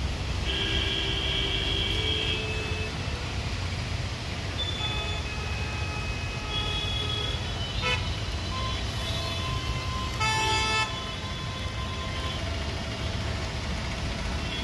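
Road traffic rumbling, with car horns honking: a longer horn near the start, fainter ones in the middle, and a short loud honk about ten seconds in.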